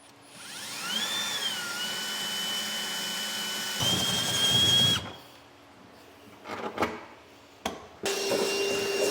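Electric drill spinning up with a rising whine, then running steady as it drills a pilot hole down through the truck bed. It gets louder for about a second as the bit bites through, then stops abruptly about five seconds in. A few clicks follow, and another steady motor starts near the end.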